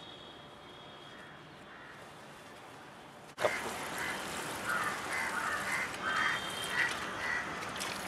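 Faint background, then, about three seconds in, water from a garden hose splashing into a shallow pond, with birds calling again and again over it.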